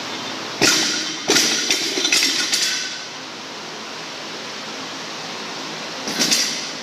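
Loaded 100 lb barbell with bumper plates dropped from overhead onto a rubber gym floor: a heavy slam about half a second in, then a second hit and a run of smaller bounces and plate rattles dying away over about a second and a half. Near the end, a brief clatter of plates as the bar is grabbed again.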